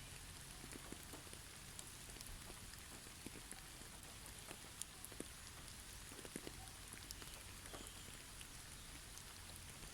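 Faint, steady pattering of falling precipitation on trees: a soft hiss with scattered light ticks.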